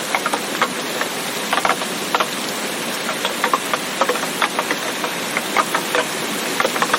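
Steady rain: a constant hiss of rainfall with close drops tapping irregularly, several a second.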